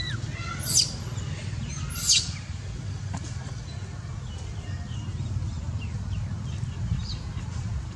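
Baby macaque giving short, high-pitched squeals while dangled upside down; the two loudest come about a second in and about two seconds in. A steady low rumble runs underneath.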